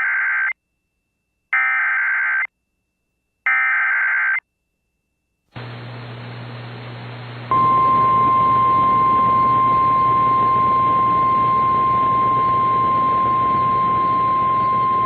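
NOAA Weather Radio alert tones. Three bursts of the SAME digital header, each a second of warbling data tones with a second's gap between them, then radio hiss and hum, then the 1050 Hz warning alarm tone: one steady, loud, high beep that starts about seven and a half seconds in and holds on.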